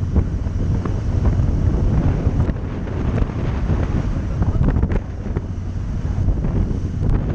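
Wind rush on the microphone of a camera mounted on a moving motorcycle, with the KTM 1290 Super Adventure's V-twin engine running steadily underneath.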